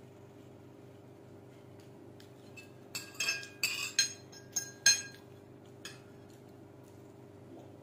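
Spoon and fork clinking against a plate: a quick run of sharp, ringing clinks about three seconds in, lasting some two seconds, then one lighter clink.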